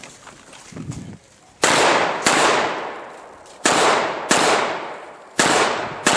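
Sig 1911 pistol fired six times in three quick pairs (double taps), each shot loud and sharp with a long echo trailing off, as the shooter engages targets during a USPSA Single Stack stage.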